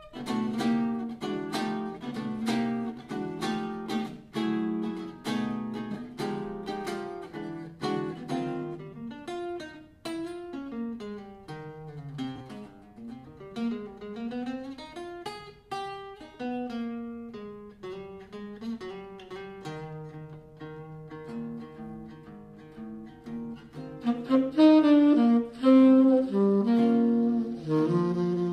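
Acoustic jazz duo: an archtop guitar solos alone, first strummed chords and then single-note runs. A saxophone comes in about 24 seconds in and plays the melody over the guitar.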